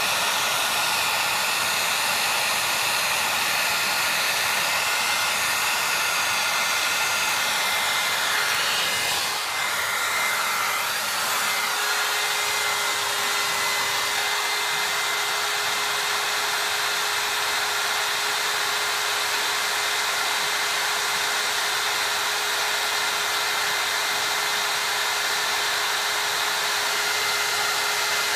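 Electric hot-air blower running steadily: an even rushing airflow with a faint high whine. A lower steady hum joins in about eleven seconds in.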